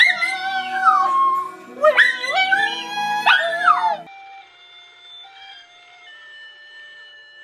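Small white dog howling in long rising and falling howls along with music. About four seconds in this stops suddenly and a quieter, simple electronic melody of single held notes takes over, the kind played by a battery-powered toy.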